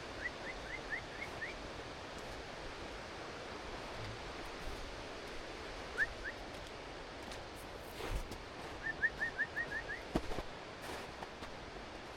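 A bird calling in three quick runs of short rising notes over the steady rush of a stream. A couple of knocks come in the second half.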